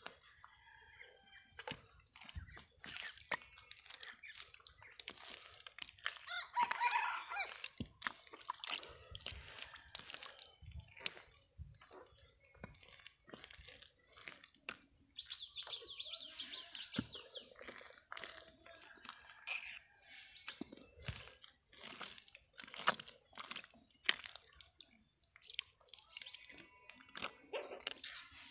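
Hands squelching and pressing through thick wet pond mud, with many short wet clicks, squishes and drips. Birds call twice in the background, once about seven seconds in and with a short trill around the middle.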